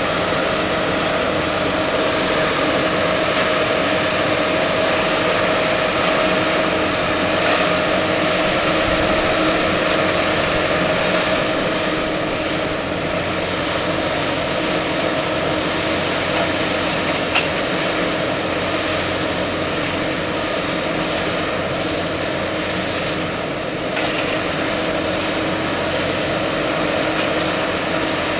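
Kershaw tie crane running steadily while its grapple arm works over the track: a steady engine noise with a steady whine on top, and one sharp clank a little past halfway.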